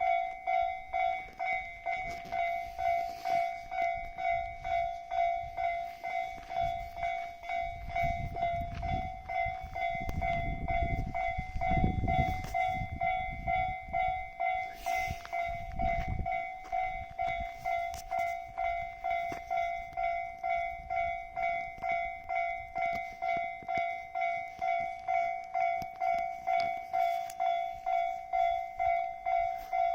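Railway level crossing warning bell ringing in steady, even strikes about twice a second, while a train passes through the crossing, its rumble loudest from about eight to thirteen seconds in and once more briefly a few seconds later.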